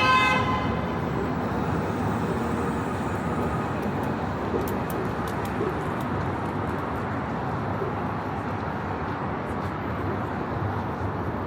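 Steady road traffic noise on a busy city street, with a car horn sounding briefly at the very start.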